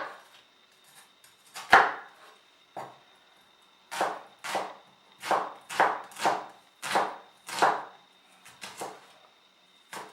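Kitchen knife chopping on a cutting board, dicing an onion. A few scattered strokes come first, then a run of chops about two a second, then a few lighter ones near the end.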